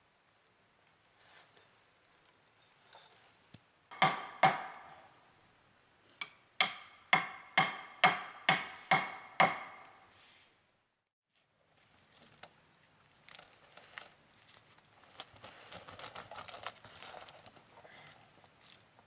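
Sharp blows on the wooden poles of a treehouse platform: two strikes, then a run of about eight at two to three a second, each ringing briefly. After a short break, rustling and light knocking.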